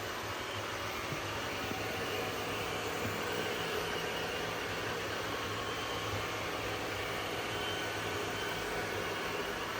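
Ecovacs Deebot N8 Pro+ robot vacuum cleaning, its motor giving a steady whirring hum.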